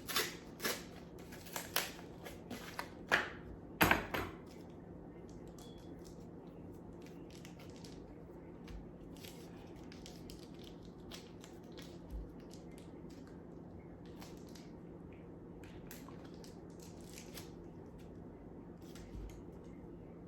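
A cream cheese package being opened and handled: a quick series of sharp clicks and rustles in the first four seconds, the loudest near the end of that run, then only occasional faint ticks over a low steady hum.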